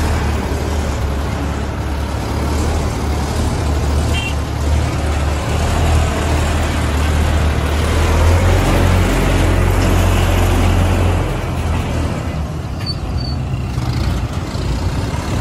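Combine harvester's diesel engine running as the machine drives past on the road. Its low drone weakens about eleven seconds in as it pulls away, with road traffic around it.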